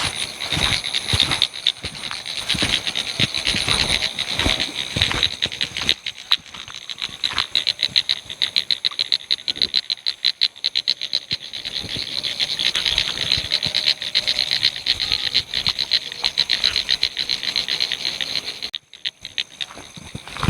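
Frogs calling in a dense chorus from flooded rice fields, a fast rattling run of pulses, with a steady high insect trill above. The chorus drops out briefly near the end.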